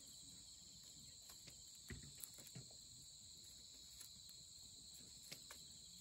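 Night insects chirping in a steady high chorus, with wood in a campfire crackling and popping several times, the sharpest pops about two seconds in.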